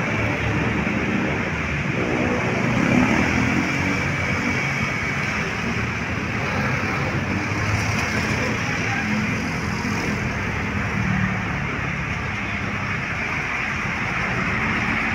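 Steady city road traffic noise: engines running and vehicles passing.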